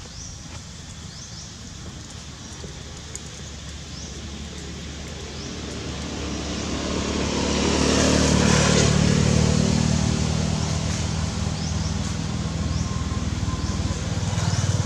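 A motor vehicle drives past: its engine and road noise swell to a peak about eight seconds in, fade, and a second vehicle starts to approach near the end.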